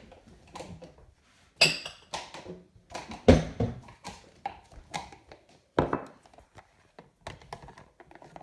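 Irregular knocks and taps of objects being handled and set down, with louder thumps about a second and a half, three and a quarter, and six seconds in.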